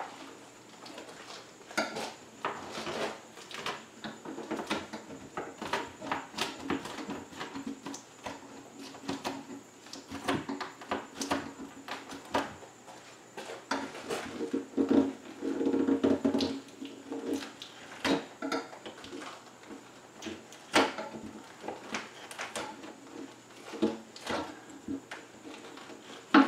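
Irregular clicks, taps and scrapes on a window pane and its frame as the glass is pushed and worked loose from its hardened glazing putty, with a longer, louder scraping stretch around the middle.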